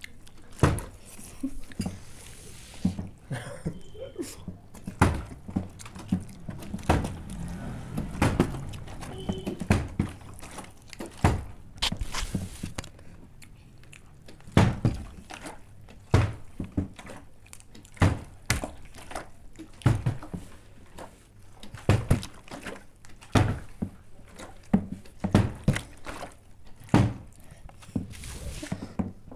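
Partly water-filled plastic bottle being flipped again and again in bottle-flip attempts, landing on a tabletop with a thunk about once a second.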